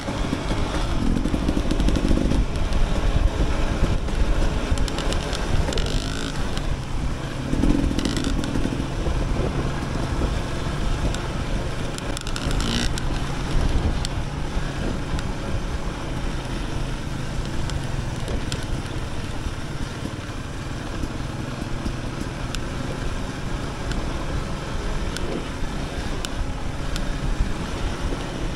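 Dirt bike engine running as the bike is ridden, with a few brief knocks along the way.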